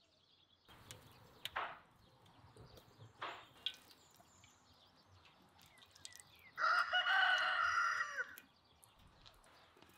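A rooster crowing once, a single pitched call just under two seconds long that falls away at the end, more than halfway through. Before it, a few faint taps and clicks.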